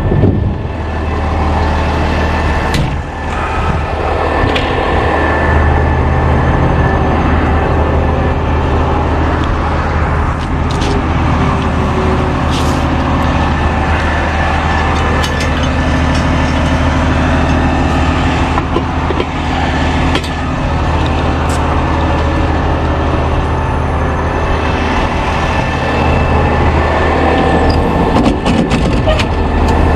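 Medium-duty tow truck's engine running steadily, its pitch shifting slightly about five seconds in and again near the end, with a few scattered clicks and knocks over it.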